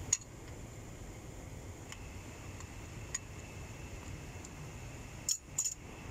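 Sharp metallic clicks of an open-end spanner on a brass threaded fitting being tightened into a water pump pressure controller: one just after the start, one about three seconds in, and a quick pair near the end, over a steady low hum.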